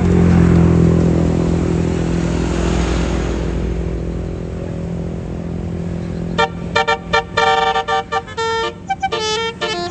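A tour bus's engine running with a steady low rumble that eases off, then about six seconds in a telolet basuri horn starts playing a quick melody of short horn notes.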